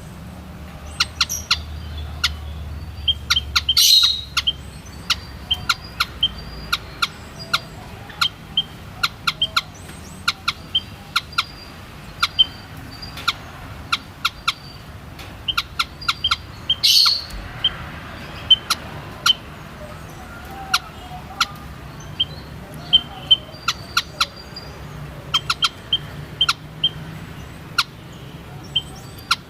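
White-headed munia (Lonchura maja) calling: a rapid, irregular series of short, sharp chirps, with two louder calls about four seconds in and again midway.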